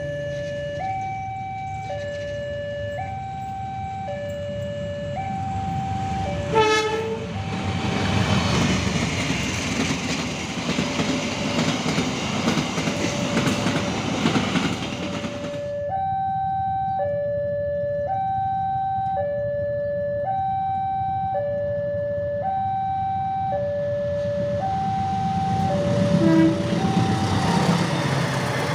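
Level-crossing warning alarm repeating a two-tone high-low chime. A short locomotive horn blast sounds about 7 s in. A passenger train then passes close by for about nine seconds, its wheel and rail noise covering the chime until it cuts off suddenly. Near the end more train noise rises over the chime as a train passes the crossing.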